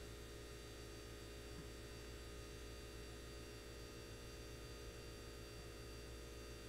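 Faint, steady electrical hum with no work sounds: a low, unchanging drone.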